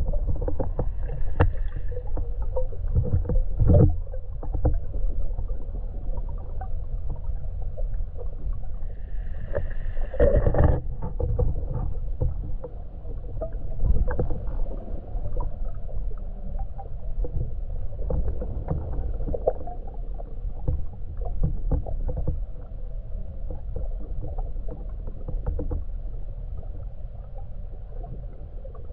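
Underwater sound picked up through a camera's waterproof housing: a steady low rumble with scattered clicks and crackles. A couple of louder rushing bursts come in the first eleven seconds or so.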